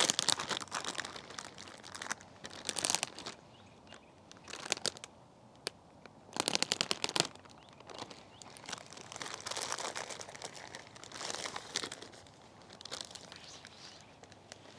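Plastic zip-lock bag crinkling and rustling in irregular bursts as it is opened and handled to take out a potted plant.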